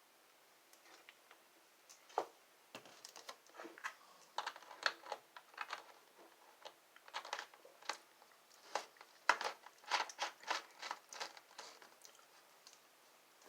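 Plastic crinkling and crackling in irregular clusters of sharp clicks, starting about two seconds in and dying away near the end.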